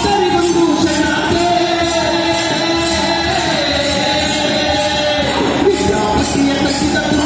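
Kamsale folk music: men singing in unison over the rhythmic clashing of kamsale, hand-held bronze cymbals, struck to a steady beat.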